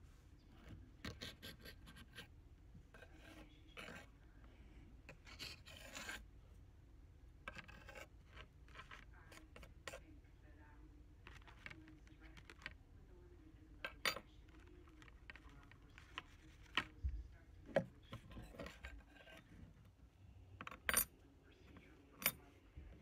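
Hands handling small objects on a wooden tabletop: scattered light taps, clicks and scrapes, with a few sharper clicks in the second half.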